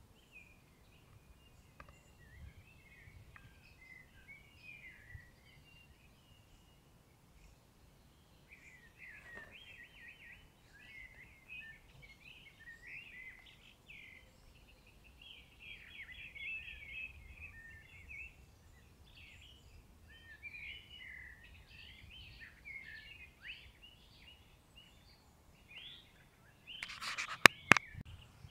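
Small birds singing in a garden: many short chirps and warbling phrases, fuller from about nine seconds in. Just before the end comes a brief cluster of loud, sharp clicks.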